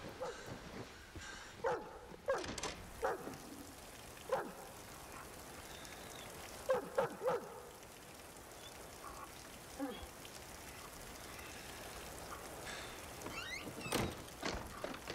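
A dog barking in short bursts, a dozen or so times, with three quick barks about seven seconds in, over steady rain. A sharp thump near the end.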